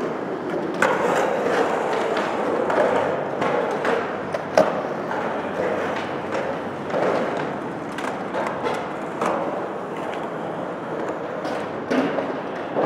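Skateboard wheels rolling over concrete with scattered clacks and knocks of boards on the ramp, the loudest knocks about four and a half seconds in and near the end.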